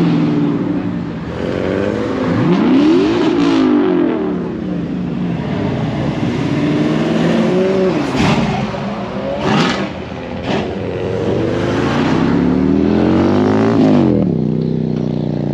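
Cars accelerating hard past the crowd one after another, their engines revving with notes that climb and fall as each goes by. A few sharp cracks come around the middle.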